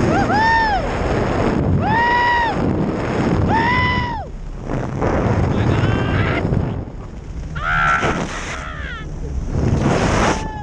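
A man screaming in fright, three long high yells in the first four seconds and shorter cries later, over heavy wind rushing across the microphone as the paraglider spins through a stunt.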